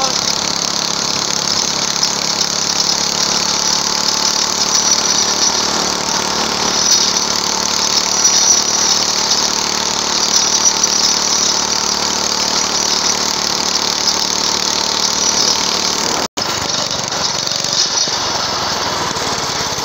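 Small engine of a homemade go-kart running at a steady pace while the kart drives along the road, with a constant high hiss of wind and road noise. The sound cuts out for a split second about sixteen seconds in.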